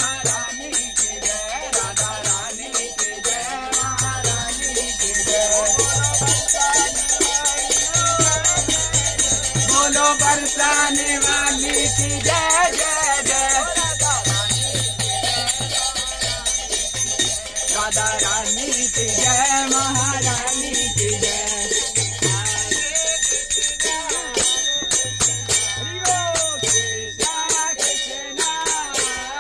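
Devotional kirtan: voices singing a chant over a steady rhythm, with bright jingling, rattling percussion throughout.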